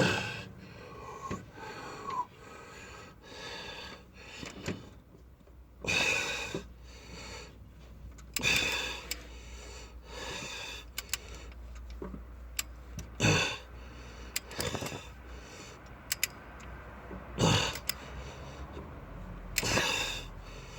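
Hand wrench ratcheting on a long cylinder head bolt in short repeated strokes, with single clicks between them. The bolt keeps turning without coming tight, which is typical of a cross-threaded or stripped bolt hole or simply a very long bolt.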